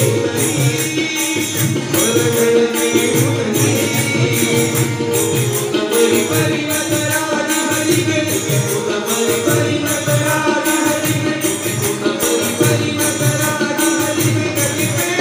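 Devotional bhajan performed live: voices singing with harmonium and tabla, and a jingling hand percussion keeping a steady beat.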